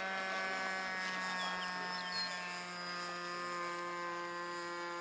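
Motor and propeller of a radio-controlled model airplane in flight, a steady droning whine holding one pitch at constant throttle.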